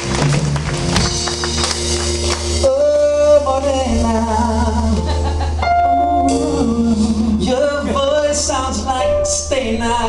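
Live band music with a woman singing into a microphone. Audience applause runs under the opening and dies away about two and a half seconds in, as the melody comes in clearly.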